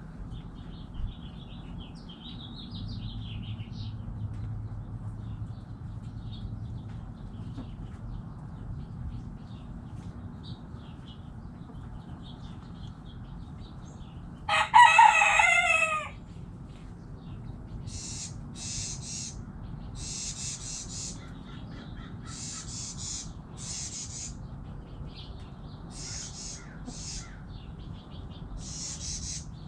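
A rooster crows once, loudly, about halfway through. Faint small-bird chirps come before it, and a series of short high-pitched bird calls follows over a steady low background hum.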